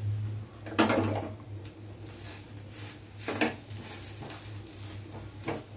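A metal spatula clattering and scraping against a non-stick frying pan while an oats chapatti is pressed down in it. There are three clatters, the loudest about a second in, another about three and a half seconds in and a short one near the end, over a low steady hum.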